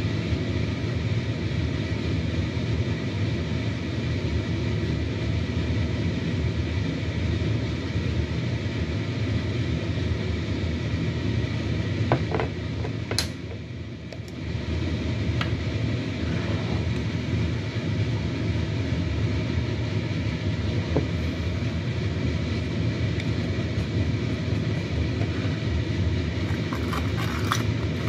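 Steady hum and rumble of a running fan or motor. A metal spoon clinks against a stainless steel bowl about halfway through, and again several times near the end as stirring begins.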